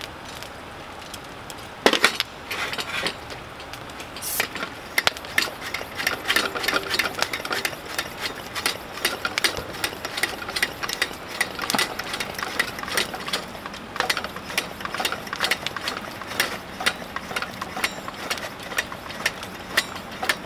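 A single knock on the aluminium table as a Coleman single-burner liquid-fuel camp stove is set down, then the stove's brass pump plunger worked by hand in quick, even strokes, a couple a second, pressurising the fuel tank before lighting.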